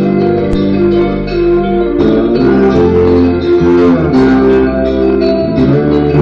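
Loud instrumental music: held melodic notes over a low bass line, played over a sound system.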